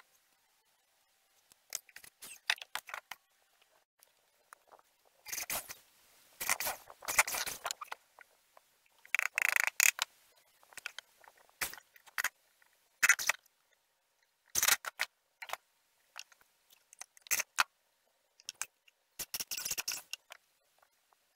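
Old wooden boards being handled on a workbench: intermittent knocks, clatter and scraping of wood pieces, in scattered short bursts.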